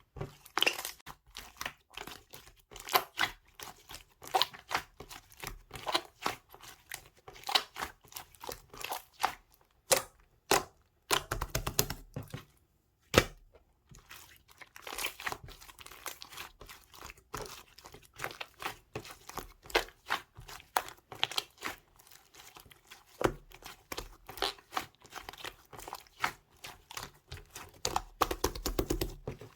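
Red clear slime being squished and worked by hand, making dense, irregular sticky clicks and pops, with thicker flurries a little past ten seconds and again near the end.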